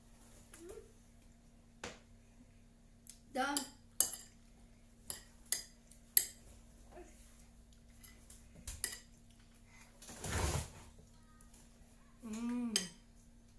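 Metal spoon and fork clinking and scraping against a plate during a meal: sharp, irregular clinks about once a second or two, with one loud clink about six seconds in.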